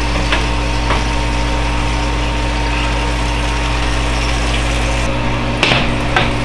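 Breville Smart Oven Air's convection fan running in air-fry mode, a steady hum. The hum drops away about five seconds in, and a single knock follows.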